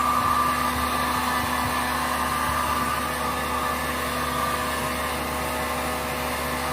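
Small electric blower motor running steadily, a continuous whine over a rush of air.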